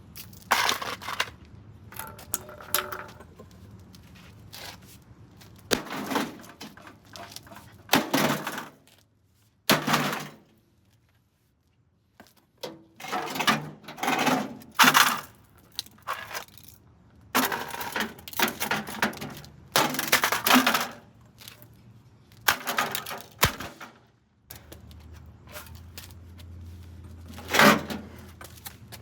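Irregular knocks, bangs and clatters from work on an old microwave oven's metal and plastic casing and parts, in a string of separate impacts with a short pause in the middle.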